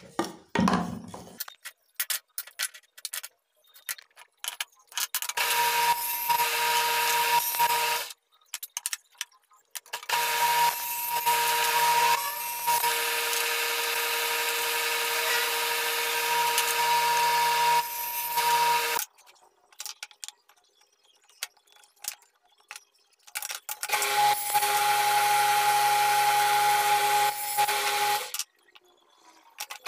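Small bench-top table saw running and cutting small wooden pieces, a steady high whine over a rough hiss in three stretches of several seconds that start and stop abruptly, the last one lower in pitch. Short knocks and clatter of wood pieces being handled come in the first few seconds.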